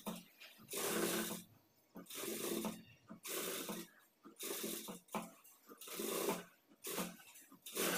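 Industrial sewing machine running in short stitching bursts of under a second, starting and stopping about once a second, as darts are sewn and backstitched.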